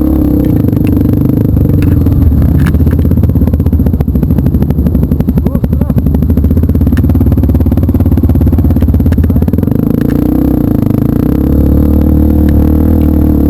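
Trail motorcycle engine running under way on an off-road trail. In the middle the note drops to slow, distinct firing pulses, then picks back up to a steadier run near the end.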